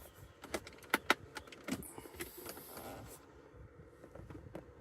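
Plastic console trim being handled and pried at with a small tool: a series of light clicks and knocks, the sharpest two about a second in.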